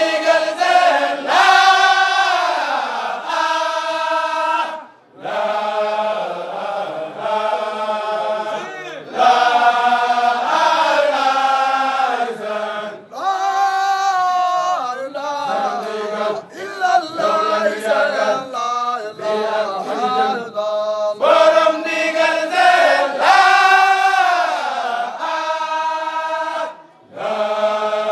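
Group of men chanting a Mouride Baye Fall zikr together in long, drawn-out sung phrases, with short breaks about five seconds in and near the end.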